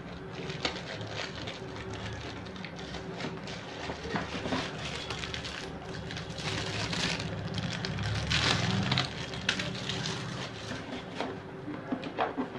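Cardboard box and packing being handled: irregular rustling, scraping and small knocks of cardboard, busiest a little past the middle.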